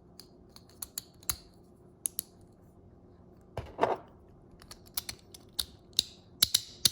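Small hard plastic Beyblade parts clicking and tapping as they are handled and fitted together: scattered sharp clicks, coming closer together near the end.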